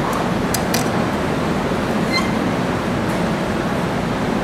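Steady low background rumble, like room ventilation, with a few light metallic clicks in the first second and a brief ringing clink about two seconds in, as a small screw is worked into a motor bracket with a screwdriver.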